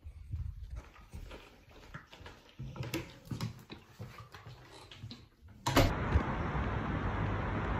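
Handling noise of a phone being carried: scattered rustles, clicks and knocks of fabric against the microphone. About six seconds in it cuts abruptly to a loud, steady outdoor rushing noise with a heavy low rumble.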